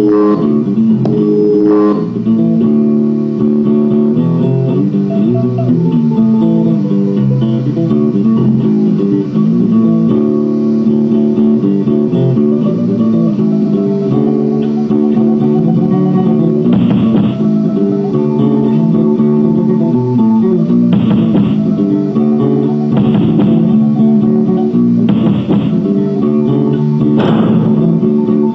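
Music track led by plucked guitar over a bass line, with brief, bright accents about every two seconds in the second half.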